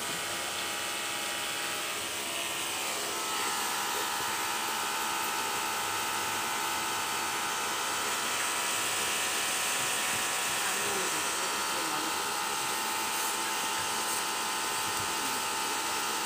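Steady whine of a small electric motor running continuously. It evens out and gets slightly louder about three seconds in.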